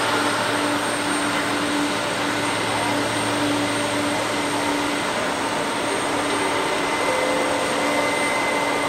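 Boeing 747-400's four turbofan engines running at taxi power, a steady rushing drone with a high thin whine over a lower hum.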